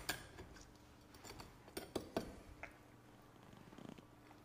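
A few light clicks and clinks of a metal knife against a roasted marrow bone and the pan as the bone is prised out of braised beef, with a small cluster about two seconds in.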